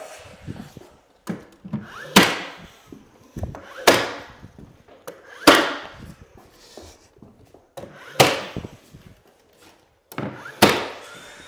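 Finish nail gun firing nails through base molding into the wall studs: about five sharp shots spread a second or two apart, with fainter knocks between them.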